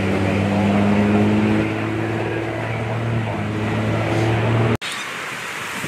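Engine running steadily at a constant speed with a low hum. About five seconds in it cuts off suddenly and gives way to a steady hiss.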